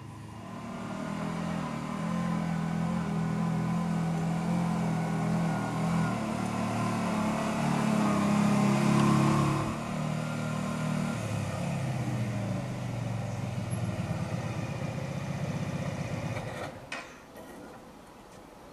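Cruiser motorcycle engine running as the bike rides up at low speed, growing louder as it nears, then easing off and running at a lower, slower note. The engine cuts off abruptly about seventeen seconds in.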